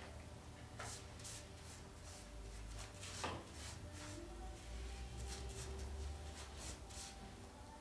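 Paintbrush swishing paint onto a board in a quick series of short strokes, with a louder scrape about three seconds in, over a steady low hum.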